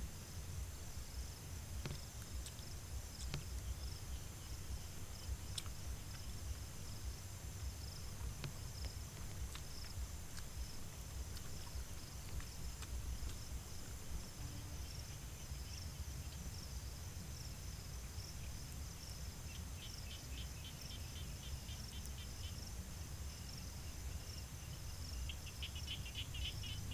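Insects chirring steadily in a grassy field, over a low, steady rumble with a few faint clicks. Near the end, rapid pulsed trills join in, about seven seconds and again two seconds before the end.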